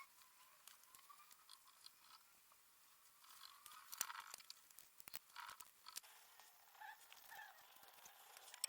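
Near silence, broken by a few faint, sharp clicks and light scraping.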